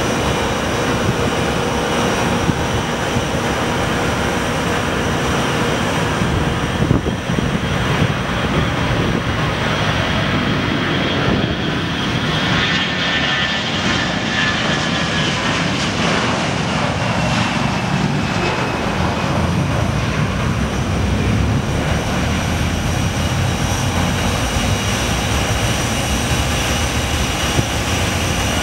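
Jet engines of a TAP Airbus A321 at takeoff thrust, a steady loud rush as the airliner rolls down the runway and lifts off. A whine drops in pitch around the middle as it passes, and a low rumble follows as it climbs away.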